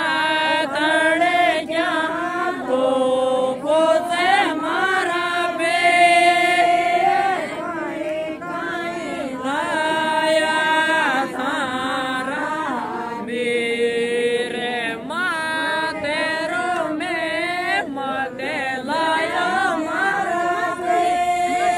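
A man singing a Rajasthani mayra geet, a traditional wedding folk song, unaccompanied, in a chant-like melody with long held notes.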